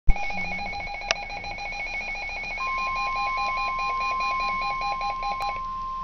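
Midland NOAA weather radio sounding an alert: after a click, a rapid warbling electronic beep alarm, joined about two and a half seconds in by the steady 1050 Hz NOAA Weather Radio warning tone, which holds on after the beeping stops near the end. The alarm announces a flash flood warning.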